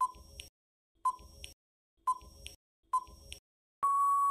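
Countdown timer sound effect: four short beeps with a tick, about one a second, then a long steady beep of about a second near the end as the timer runs out.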